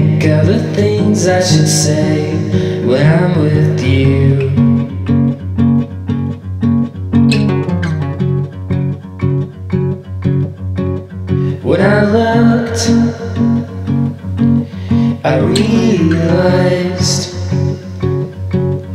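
Background music: a song with strummed acoustic guitar and a singing voice that comes in for phrases near the start and again in the second half.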